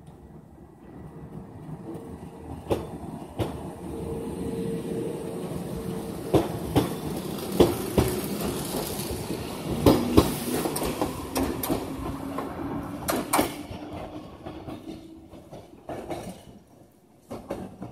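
Yoro Railway 600 series electric train pulling out and moving off past the platform, its wheels clacking sharply over rail joints, with a hum that rises slowly in pitch, then fading as the train moves away.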